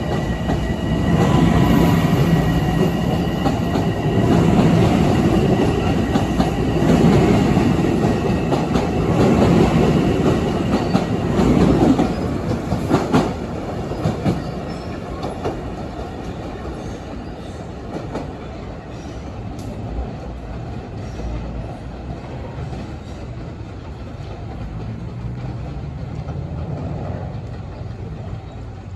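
LIRR M7 electric multiple-unit train running along the track, wheels clicking over the rails, with a steady high whine early on. The rumble is loudest for about the first half, then fades gradually as the train moves away.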